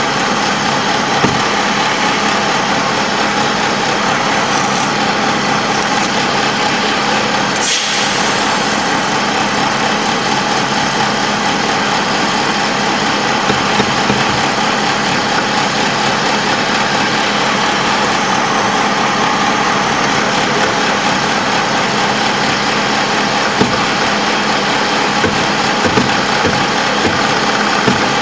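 LAV III armoured vehicle's diesel engine running steadily, heard from inside the hull as a constant loud drone with a steady hum. A few short sharp knocks stand out above it, mostly in the last few seconds.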